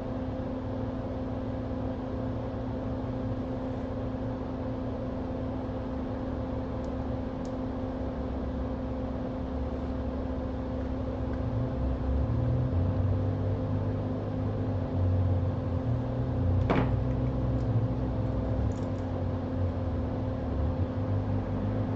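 Steady machine hum from bench equipment, with low rumbling handling noise that grows louder in the second half and a single sharp click about seventeen seconds in.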